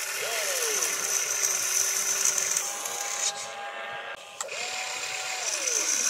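Radio-controlled hobby excavator's small electric motors and gearboxes whining as it slews and moves its boom and bucket. The pitch rises and falls with each movement, once near the start and again about two-thirds of the way through.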